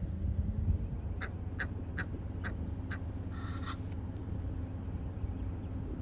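Bird calls: a run of about five short, sharp calls roughly half a second apart, followed by a longer, harsher call.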